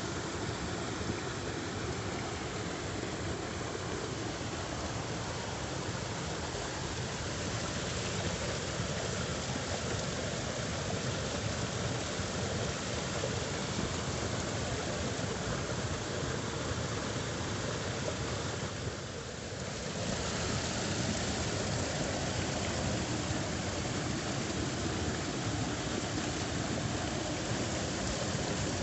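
Water flowing steadily through a rice field channel, an even rushing noise that dips briefly about two-thirds of the way in.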